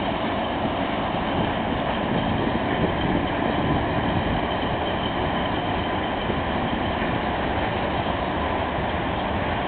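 PKP class ET22 electric freight locomotive running past, a steady, even mechanical noise with a faint steady whine.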